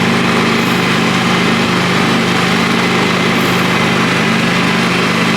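Small petrol engine running steadily at an even speed, with no change in pitch.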